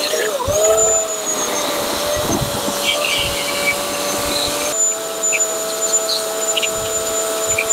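Bosch electric chainsaw running at speed with its chain cutting into dry deadwood. It gives a steady whine whose pitch dips briefly about half a second in as the chain bites. Near five seconds in it jumps abruptly to a slightly different steady pitch.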